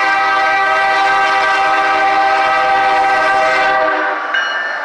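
Air horn of a CSX GE ES44AH diesel locomotive sounding a loud multi-note chord as the train nears a grade crossing. The long blast cuts off about four seconds in, and a short blast follows near the end.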